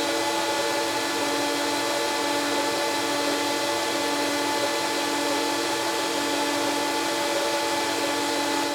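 Electric wood planer running steadily with no change in load: a constant whine made of several fixed tones over a hiss.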